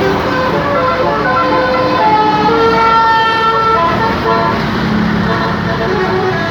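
Telolet horn on a bus: a multi-tone musical horn sounding a tune of changing notes over steady road noise.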